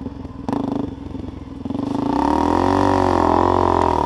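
Dirt bike engine under the rider, given a short burst of throttle about half a second in, then revving up hard about two seconds in and holding a loud, steady pull to the end.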